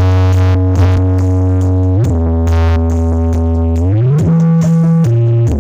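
Electronic dance music played very loud through a truck-mounted carnival sound system with six subwoofers. Heavy bass notes with synth chords above them are each held for a second or two, then slide to a new pitch, several times.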